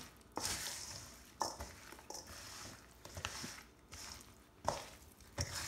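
A spoon stirring seasoned chunks of raw chicken and sweet potato in a stainless steel mixing bowl: wet, scraping stirring noise with a few sharp knocks of the spoon against the bowl.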